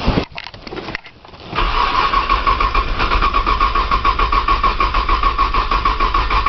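1995 Nissan Maxima's engine cranking on the starter, a steady rhythmic cranking that begins about a second and a half in, without catching: a cold hard-start on a battery that is running down.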